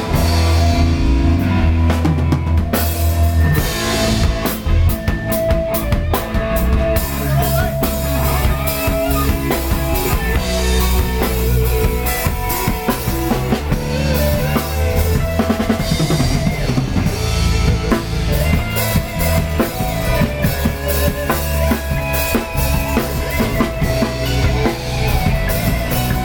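Instrumental break of a Thai pop-rock song: full band with drum kit, bass and a sustained lead melody line.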